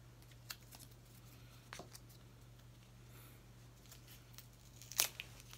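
A white USB charging cable being handled and unwound from its wrap: a few short plastic clicks and rustles, the loudest about five seconds in, over a low steady hum.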